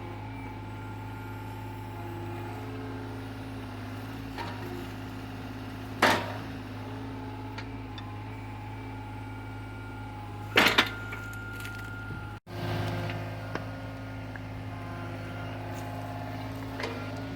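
Excavator's diesel engine running steadily, with a few loud knocks, including a double knock just past halfway.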